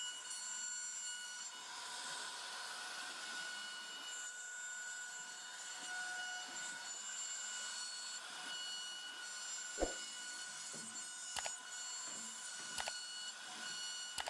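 CNC router spindle whining steadily as its bit cuts a recessed panel into a wooden door, with three sharp knocks in the last third.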